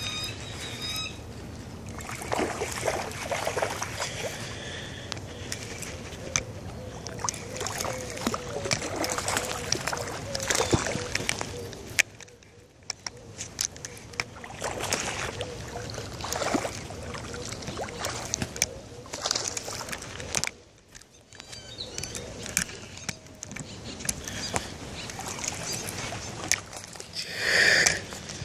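Handling noise on a handheld phone's microphone: scattered clicks and rubbing, with faint voices now and then and a louder burst near the end.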